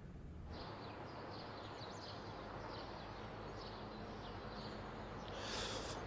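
Faint background birdsong: small birds chirping now and then over a steady low hiss of ambient noise, starting about half a second in.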